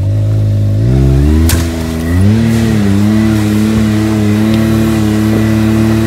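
Can-Am Maverick X3 side-by-side's turbocharged three-cylinder engine running low, then revving up about a second in, easing off briefly with a click, and climbing again to hold a steady higher pitch.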